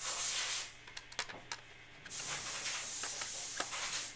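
Hard plastic rubbing and scraping with a few clicks as a trim router's clear plastic dust shroud and base are handled and turned. There are two spells of hissy rubbing, a short one at the start and a longer one from about halfway.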